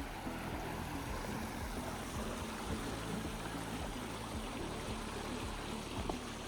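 Flowing stream water rushing steadily over rocks, with soft background music underneath and a few faint low knocks.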